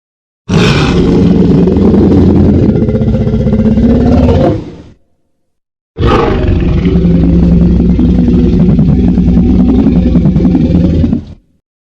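Two long, loud creature roars from a sound-effect recording, each lasting about four to five seconds with a deep steady pitch, separated by about a second of silence.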